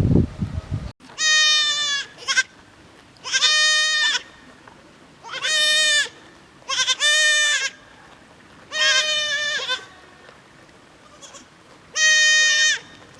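Young goat kids bleating, about seven high-pitched calls each lasting under a second, spaced a second or two apart; this is the kind of calling that young kids make after their mother. A low rumbling noise cuts off about a second in.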